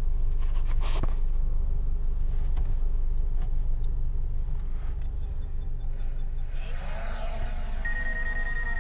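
Steady low rumble of a car's engine idling, heard inside the cabin. Near the end a steady high tone and wavering electronic music fade in.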